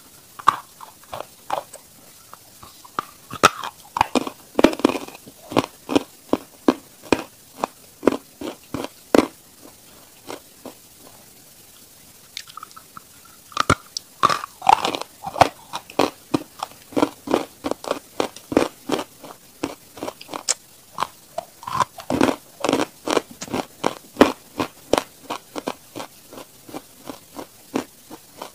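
Close-miked biting and chewing of a hard piece of chalk: rapid, crisp crunches, a pause of about three seconds midway, then a fresh bite and more crunching.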